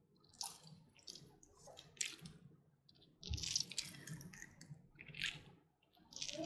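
Half a lemon being squeezed by hand: faint wet squelches and drips in short bursts, about six over a few seconds.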